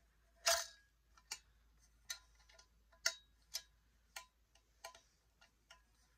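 A string of short, light clicks at an uneven pace, about one or two a second, with a louder click about half a second in.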